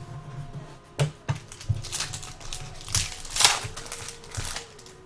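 Trading cards and their packaging being handled, a series of crinkling, rustling strokes, the loudest about three and a half seconds in.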